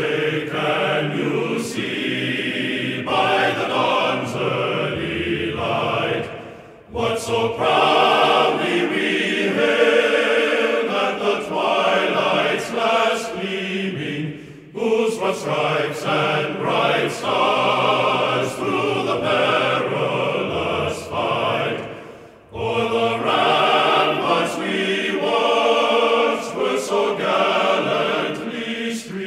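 Background music with choral singing, in phrases that break off briefly about every seven to eight seconds.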